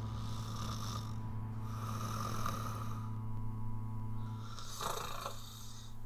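A man snoring in his sleep: three long, breathy snores, each about a second long, over a steady low hum.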